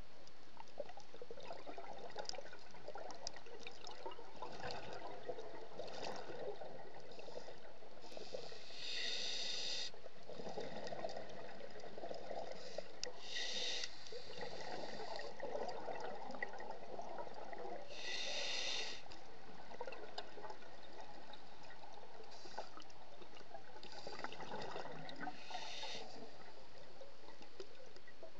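A scuba diver's regulator heard underwater: a hissing, whistly inhalation every few seconds, with the rumble of exhaled bubbles between breaths.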